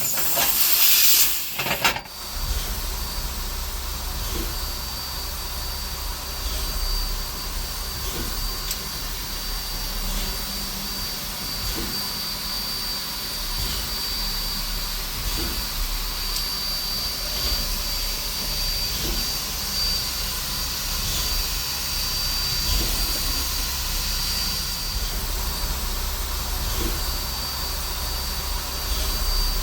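Steam train of 2-8-0 locomotive #18: a loud burst of steam hiss in the first two seconds, then a steady low rumble under a thin high whine, with soft regular clicks about every second and a half.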